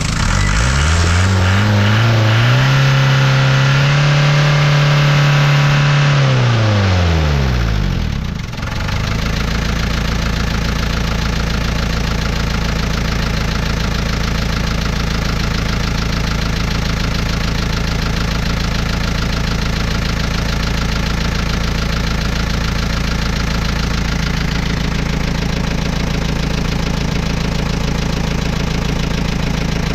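Ford Transit 2.5 diesel engine revved up over a couple of seconds, held at higher revs for a few seconds, then let fall back. About eight seconds in it drops to idle and idles steadily after that.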